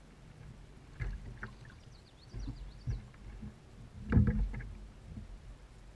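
Irregular low thumps and knocks against a kayak hull, the loudest cluster a little past the middle, while a just-landed bass and gear are handled aboard. A faint high twittering sounds about two seconds in.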